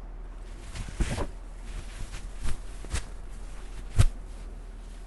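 Clothes being taken off: fabric rustling with a few short, soft knocks, over a steady low hum.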